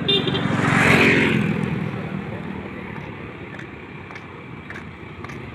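A motor vehicle passing close by on the road: its engine and tyre noise swell to a peak about a second in, then fade away over the next few seconds.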